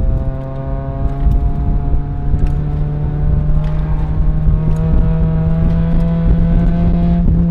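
Mazda Miata's four-cylinder engine pulling under hard acceleration, heard from inside the cabin, its pitch climbing slowly and steadily over several seconds. The car runs with no catalytic converters.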